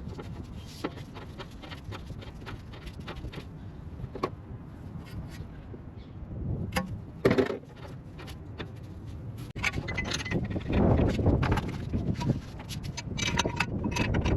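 Metal tools and car parts clinking and knocking as they are handled during repair work, with one louder knock about halfway through and busier, louder clattering and scraping in the second half.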